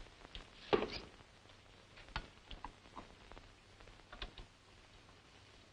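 Scattered clicks and light knocks of a record being taken from a rack and set on a record player, the loudest about three-quarters of a second in, with smaller ones around two, three and four seconds in.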